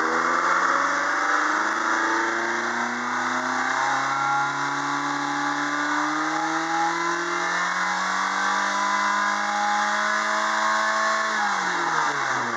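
Ford Focus I's 1.6-litre 16-valve Zetec four-cylinder petrol engine (EZDA) revved up and held at high revs, the pitch climbing slowly. Near the end the throttle is released and the revs fall back quickly.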